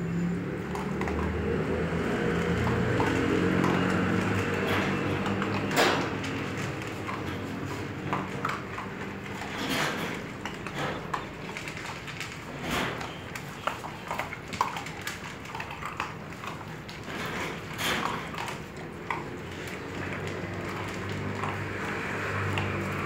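Several dogs eating dry kibble from a shallow metal tray, with irregular crunching and sharp clicks of kibble against the metal. A low droning hum underlies the first several seconds and returns near the end.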